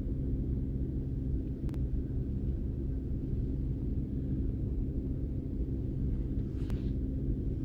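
Steady low rumble and hum of an idling vehicle engine, with two faint clicks, one near the start and one near the end.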